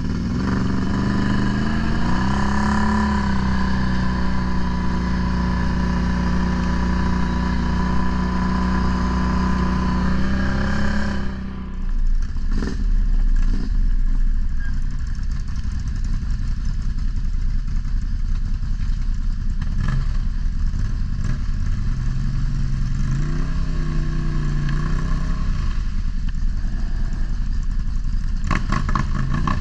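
ATV engine running while riding: it revs up about two seconds in and holds a steady pitch, eases off the throttle about eleven seconds in, picks up briefly a little later, and comes back on the throttle near the end.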